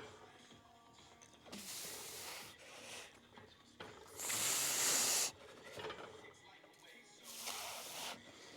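A man's forceful hissing exhalations through the teeth, three breaths about three seconds apart with the middle one loudest and longest, as he strains through leg-extension reps taken to failure.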